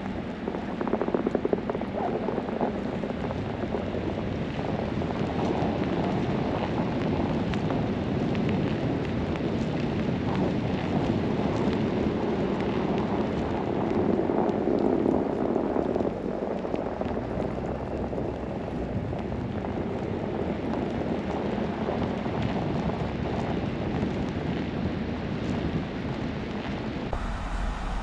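Blizzard noise: wind and driven snow hitting the microphone, a steady rushing, pattering hiss that swells for a few seconds around the middle.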